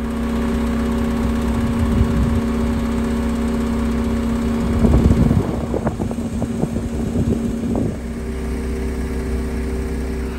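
A vehicle engine running steadily at a constant speed, with a spell of irregular clattering knocks a little past the middle.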